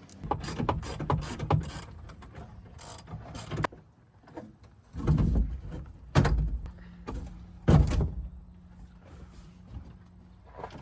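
Ratchet wrench clicking rapidly as a 12 mm seat bolt is worked loose, followed by three heavy knocks.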